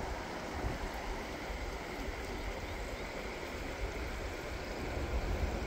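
Rain-swollen, muddy river rushing steadily, with wind gusting on the microphone as low, uneven rumbles.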